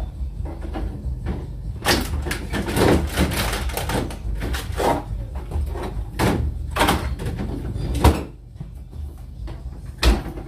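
Groceries being put away in a refrigerator: containers and packages knocking and clacking against the shelves and drawers, with rustling between the knocks. Near the end comes one sharp knock as a refrigerator door is swung shut.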